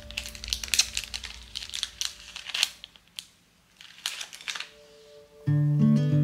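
Light crinkling and rustling with scattered small clicks and taps, as things are handled, pausing briefly around the middle. Strummed acoustic guitar music comes in near the end.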